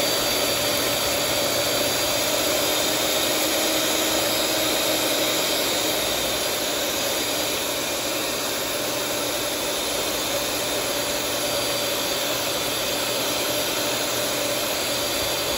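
Electric hand mixer running steadily, its motor whining evenly as the twin wire beaters whip a runny cake batter in a bowl.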